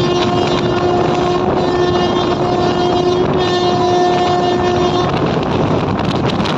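Train running at speed, with wind rushing over the microphone and steady running noise; a locomotive horn is sounding, breaks off briefly twice, and stops about five seconds in.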